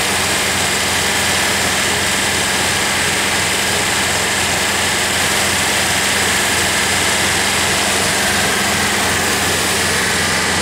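Sewer jetter running steadily: a constant low hum from its pump unit under the hiss of high-pressure water jets spraying from the jetting nozzle.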